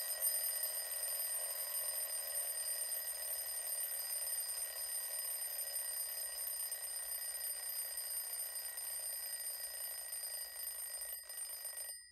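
Alarm clock ringing steadily, the signal that a 30-second timer has run out. It cuts off near the end, leaving one tone to die away.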